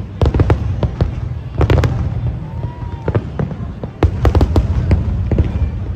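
Fireworks going off in a rapid, irregular series of bangs and crackles over a constant low rumble, with a louder cluster of bursts about four seconds in.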